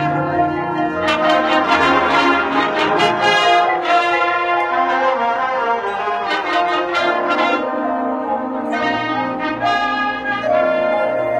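Marching band playing its show music: brass chords to the fore, with sharp percussion hits through the passage.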